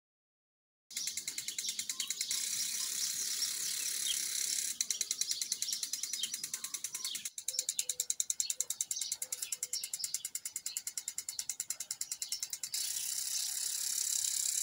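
Rapid, even high-pitched ticking, about ten ticks a second, with birds chirping faintly in between.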